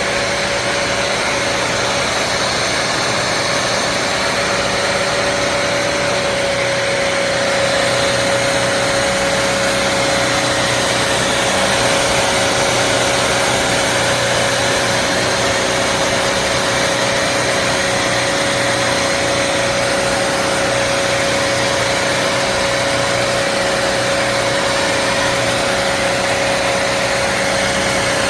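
Bissell CrossWave HydroSteam wet-dry vacuum running steadily: an even motor whine over the rush of suction air.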